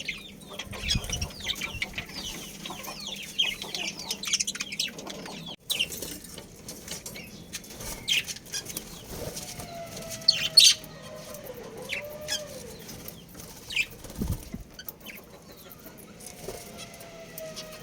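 Budgerigars chirping and chattering in quick falling chirps, with wings fluttering. About five and a half seconds in the sound breaks off abruptly. After that the chirps are sparser, with a few sharp clicks and a lower, wavering whistled note.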